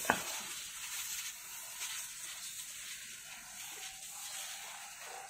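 Pressure sprayer wand spraying liquid foliar fertilizer, a steady hiss of spray.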